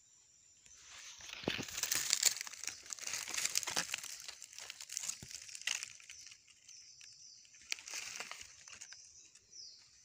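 Dry leaves and brush crackling and rustling as someone pushes through forest undergrowth. It starts about a second in and eases off near the end.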